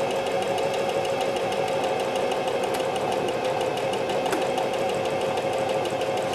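Singer 4423 Heavy Duty electric sewing machine running steadily as it stitches a one-step buttonhole on its own: an even motor hum with rapid, regular needle ticking.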